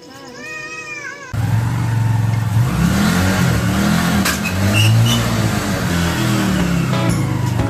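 A small motorcycle engine, as used in a homemade mini buggy, starts sounding abruptly about a second in and runs with its revs rising and falling. Before it there is a brief high sliding tone.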